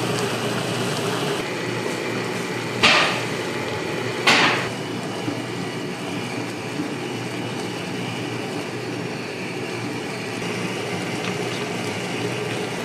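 Steady hum and hiss of an automatic ramen cooker boiling noodles in a paper bowl. Two sharp knocks come about three seconds in, a second and a half apart.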